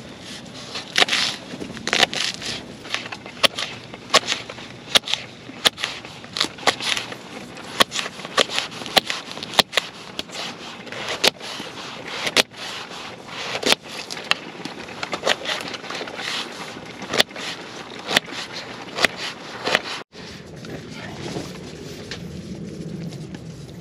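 Kitchen knife chopping vegetables on a wooden cutting board, giving irregular sharp taps several times a second. About twenty seconds in, the tapping gives way to a steady low rush from a gas camping stove heating a mess tin of boiling noodles.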